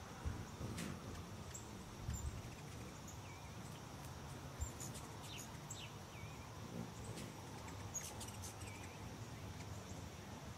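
Scattered short bird chirps and chip notes over a faint, steady, high insect drone.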